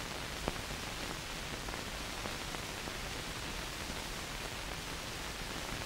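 Steady hiss of recording noise with no tones in it, and one faint click about half a second in.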